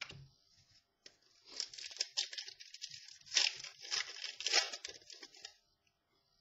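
Crinkling, tearing rustle of trading cards and their packaging being handled, lasting about four and a half seconds, with louder crackles about three and a half and four and a half seconds in.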